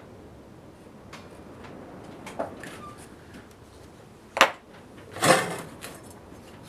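Parts of a concrete saw being handled while its blade is fitted: a few light clicks, a sharp clack about halfway through, then a brief scraping rattle.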